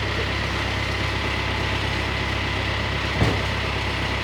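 A motor vehicle's engine idling steadily, with one short knock a little over three seconds in.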